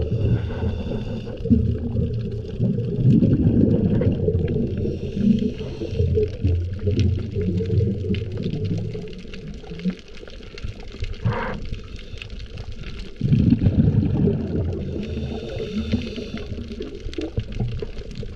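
A scuba diver's regulator heard underwater: two long bursts of exhaled bubbles rumbling, one starting a second or two in and one about two-thirds through, with softer hissing breaths and water noise between them.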